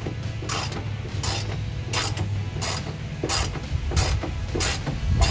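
Hand socket ratchet clicking in repeated strokes, about three every two seconds, as a bolt is backed out.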